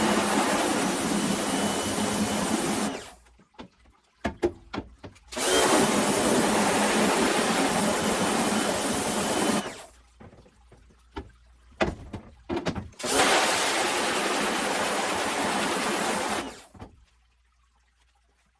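Pressure washer spraying water onto a screen-printing mesh screen in three spells of about four seconds each, with a few short clicks and knocks in the pauses between them. The spray is blasting dried water-based discharge ink out of the clogged mesh after degreaser has soaked in.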